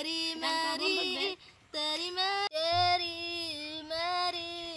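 A high-pitched voice singing long, held notes in three phrases with short breaks between them.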